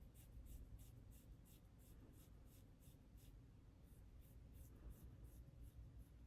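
Faint, quick scraping strokes of a face razor over oil-coated skin, about three a second with a short pause midway, shaving off peach fuzz.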